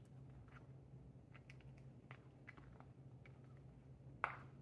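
British Shorthair munchkin cat eating: faint, scattered little clicks and smacks of chewing and licking, with one sharper click near the end.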